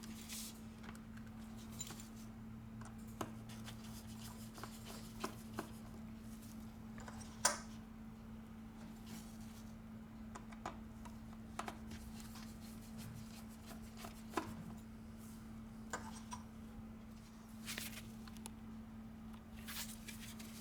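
Scattered small clicks and taps of a precision screwdriver and tiny screws being worked out of an iPhone X's logic board connector bracket, a few seconds apart, over a steady low hum.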